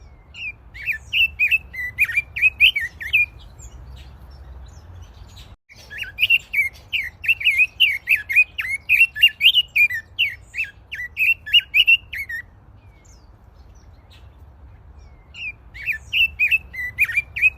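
A songbird singing in three bouts of rapid, quickly warbling chirps, with short pauses between them, over a faint steady low hum.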